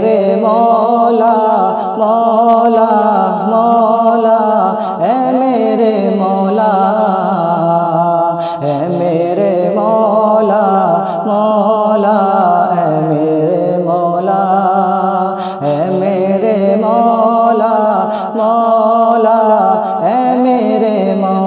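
Male voice singing the opening of a hamd, an Urdu devotional song praising God, in long held phrases whose pitch wavers and bends in ornamented runs.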